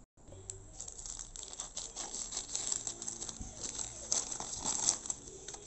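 A plastic courier mailer bag crinkling and rustling in irregular crackles as it is pulled open by hand.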